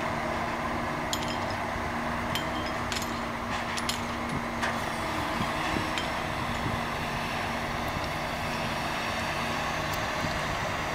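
Steady industrial machinery drone with a low hum, and a few faint metallic clicks in the first half.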